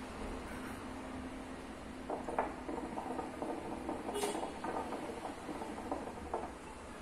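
Nargile (hookah) water bubbling as smoke is drawn through the base: a run of rapid, irregular gurgles starting about two seconds in and stopping shortly before the end. A faint steady hum sits underneath.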